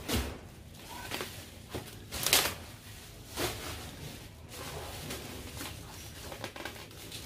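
Bubble wrap and plastic packaging rustling and crackling as a wrapped parcel is handled and lifted out of a cardboard box, with a loud crackle a little over two seconds in.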